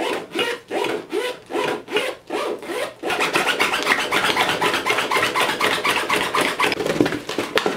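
The zipper of an Ornot cycling bag is run rapidly back and forth, open and shut, in quick rasping strokes. It goes about four strokes a second at first, then faster and denser from about three seconds in.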